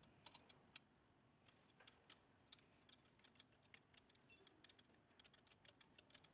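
Faint, irregular light metal clicks, several a second, as a nut is turned by hand on a motorcycle's rear axle and chain adjuster.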